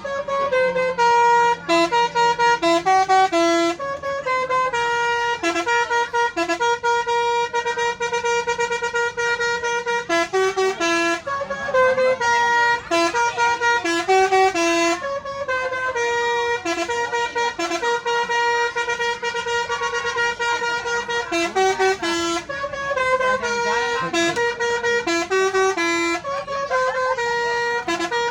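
Indonesian 'telolet' bus horn: a multi-tone musical horn playing a tune, jumping between a few pitches in short notes and longer held ones, repeating the same phrases over and over.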